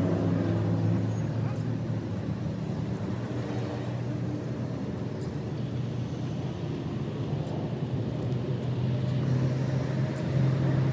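An engine running steadily at a constant speed, a low droning hum that grows a little louder near the end.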